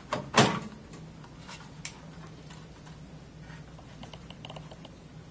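Blank storage matrix assembly of a Qualstar RLS tape library being pulled free of the library frame: two sharp clacks in the first half second, the second the loudest, then a few lighter clicks and a brief patch of small rattling about four seconds in.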